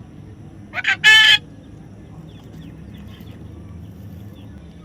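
A parrot gives one loud call about a second in, lasting about half a second and led by a short quieter note, then a few faint short chirps.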